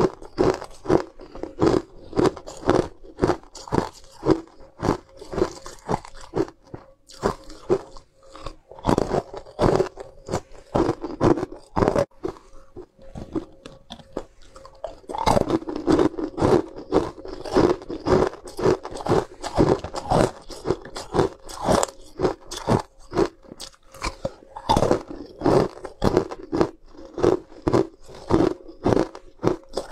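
Ice cubes being bitten and chewed: loud, rapid crunching, several crunches a second, with a short lull about halfway through.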